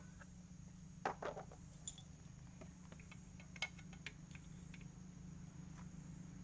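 A few light, irregular clicks and taps, a handful in the first four seconds, over a faint steady low hum.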